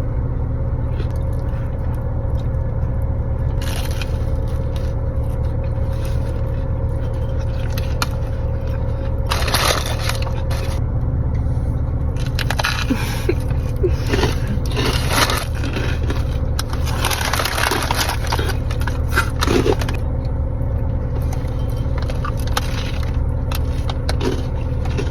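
A person biting into and chewing a Subway sub with lettuce, tomatoes and banana peppers, in several crunchy stretches. A steady low hum runs underneath.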